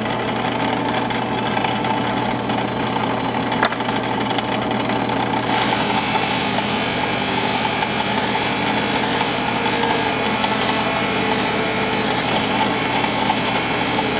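Drill press motor running steadily with a buffing wheel spinning in its chuck. There is a light click near four seconds. From about five and a half seconds in, a hissing rub joins the hum as a briar pipe bowl is pressed against the spinning buff.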